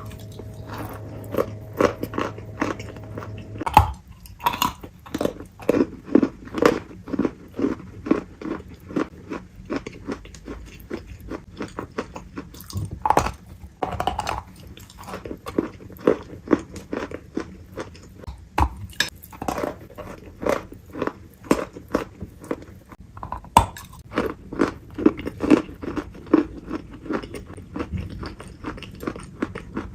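Close-miked chewing of crunchy food, a steady run of crunches about two to three a second, with a few sharper, louder bites along the way.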